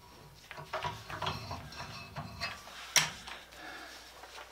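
Light metal clicks and clinks from a Miller Falls No. 120 breast drill being handled and worked at its chuck, with one sharp click about three seconds in.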